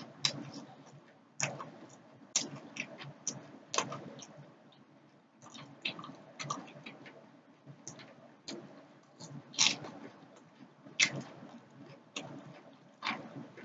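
A person chewing fried tilapia with the skin on: irregular sharp mouth clicks and smacks, some louder than others, every second or so.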